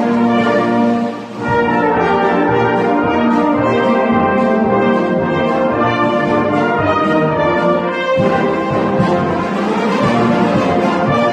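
Brass band playing a sustained, chorale-like instrumental introduction, with a short dip in level about a second in.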